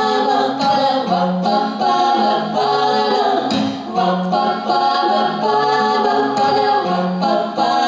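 Music: a melody over a bass line that steps between held notes, part of a song performance.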